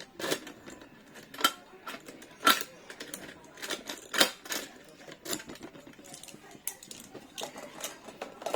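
A key working in a smart lock's cylinder, giving a run of irregular sharp metallic clicks and clacks as the lock mechanism is tested.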